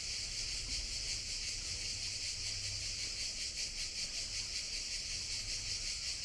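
Cicadas singing in a steady, dense, shrill chorus, with a faint low rumble underneath.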